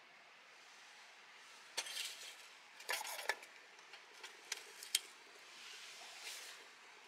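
Light clinks and short clatters of cookware and utensils being handled, in a few scattered groups of sharp knocks.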